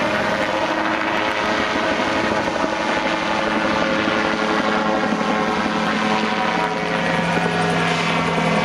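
An autogyro in flight: its engine and propeller give a steady drone made of several even tones, growing slightly louder near the end as it comes closer.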